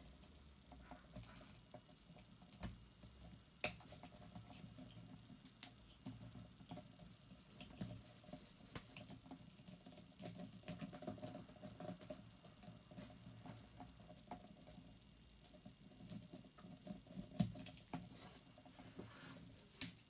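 Faint scratching and small clicks of a pocket-knife blade prying at the plastic housing of an angled 13-pin GK connector, with a sharper click a few seconds in and a louder click near the end.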